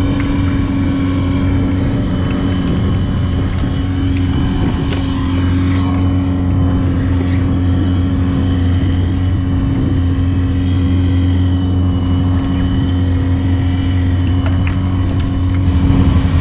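Mercury 60 hp outboard motor running steadily at high revs under way, holding one pitch throughout. The engine is revving higher than it should and won't be held down, with a constant air-leak-like sound that the owner takes for a vacuum leak.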